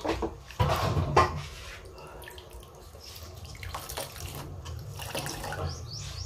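Coconut milk pouring from a mesh strainer of squeezed grated coconut into a wok of liquid, a steady trickling splash. A few knocks of handling come in the first second or so.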